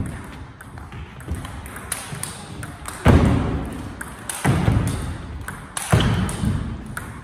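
Table tennis rally: the ball clicks quickly back and forth off the paddles and table. Several heavy thuds ring out through the rally and echo in the hall.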